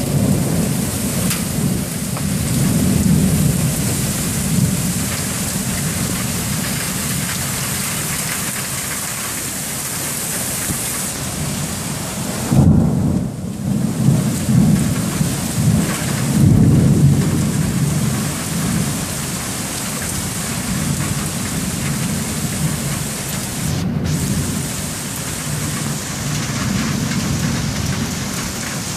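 Torrential rain pouring steadily, with long, rolling rumbles of thunder underneath that swell loudest about halfway through.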